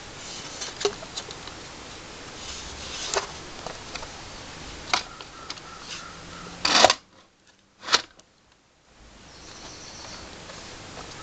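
Clicks and knocks of a Polaroid 195 Land Camera's hinged back and metal roller assembly being handled, with one loud clack about seven seconds in and another a second later, over steady hiss.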